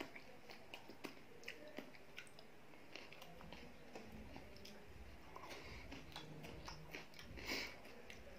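Faint close-up eating sounds: chewing of rice with curry and dal, and fingers squishing and mixing rice on a plate, with many small wet clicks and one louder one near the end.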